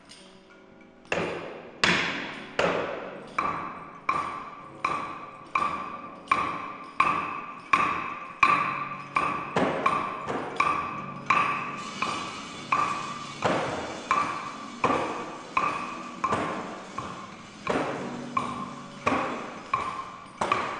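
A ringing, pitched ping struck over and over in a steady beat, about four strikes every three seconds, starting about a second in, over a low sustained tone.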